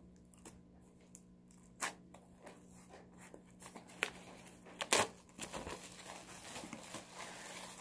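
Plastic shrink-wrap being torn and peeled off a book: a series of sharp crackles, the loudest about five seconds in, then continuous crinkling of the plastic.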